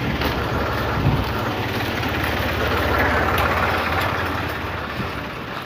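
Tractor engine running, a steady low rumble under a rushing noise that swells to its loudest about three seconds in and then fades.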